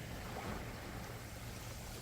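Calm sea waves in a lull between breaks: a soft, steady wash of water over a low rumble.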